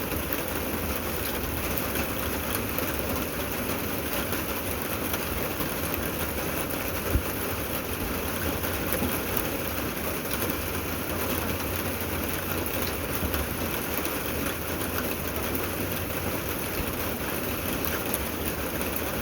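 Steady rain falling, an even hiss of many drops, with one sharper tap about seven seconds in.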